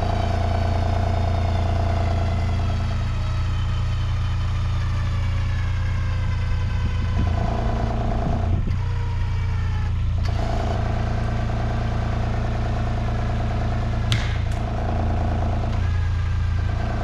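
Kubota engine running under load while pulling on a rope tied to a tree, its note shifting several times as the load comes and goes. A single sharp click about fourteen seconds in.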